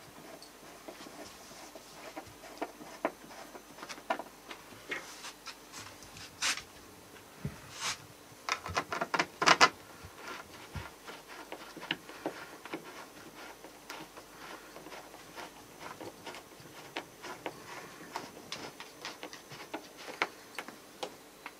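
Hand screwdriver driving small screws into wooden trim: scattered faint clicks and creaks, with a run of louder clicks about eight to ten seconds in.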